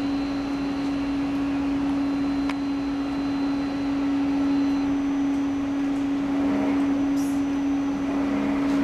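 GE LightSpeed CT scanner humming steadily with fan noise while its patient table is driven back out of the gantry. A faint high whine runs through the first half, and a single click comes about two and a half seconds in.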